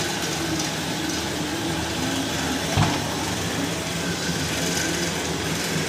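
Electric motor and belt-driven gyroscope flywheel of a self-balancing bicycle robot running with a steady hum. A single thump about three seconds in.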